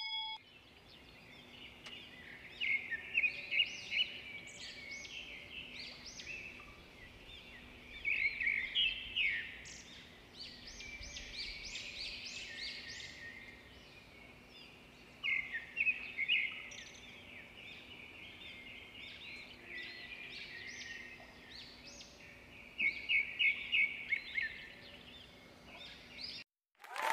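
Birds chirping in scattered bursts of quick high notes, with short pauses between the bursts.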